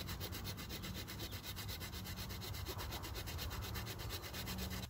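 Small folding saw blade of a Swiss Army knife cutting through a hazel stick with rapid, even back-and-forth strokes that stop near the end as the piece is cut through.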